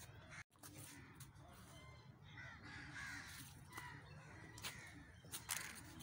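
A flock of crows cawing faintly, many birds calling together in a commotion around a dead crow.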